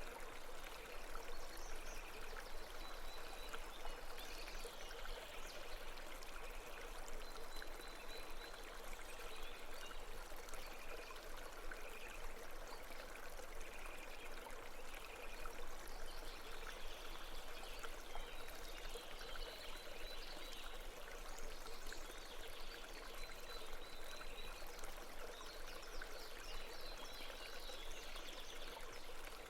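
Steady flow of a babbling brook, water running and trickling without a break, with faint high-pitched chirps now and then.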